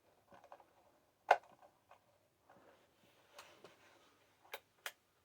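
Sharp clicks and taps of small parts and tools being handled, with one loud click a little over a second in and a few more near the end.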